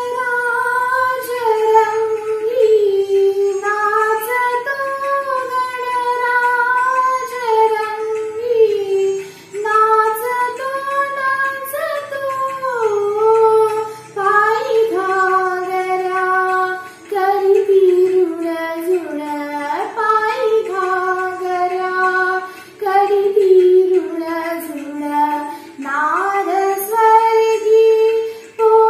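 A young woman singing a song solo with no instrument heard. One voice holds long notes and slides between them, breaking briefly for breath every few seconds.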